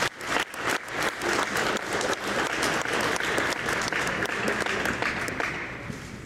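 A small group of people applauding, a quick patter of many hand claps that dies down near the end.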